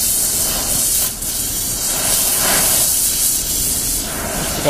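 Gas torch flame hissing steadily as it heats a metal pipe, with a brief dip in loudness about a second in.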